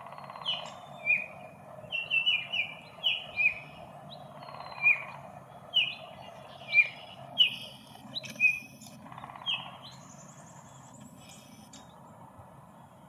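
Baltimore oriole singing: a series of short, clear whistled notes that each slide down in pitch, about a dozen of them over nine seconds before the song stops.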